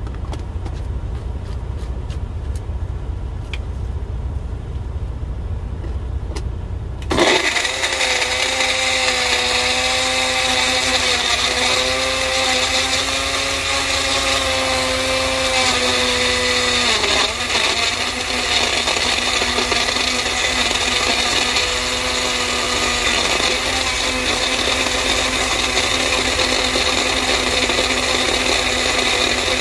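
A low rumble. About seven seconds in, a Magic Bullet personal blender's motor starts suddenly as the fruit-filled cup is pressed down onto the base, and it runs loud and steady while blending the fruit. Its whine sags briefly in pitch around the middle.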